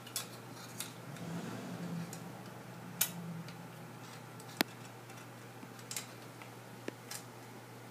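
Sparse light metallic clicks of a KMC X10SL bicycle chain being fed by hand around the sprockets and chainring, about seven clicks at uneven intervals, over a low steady hum.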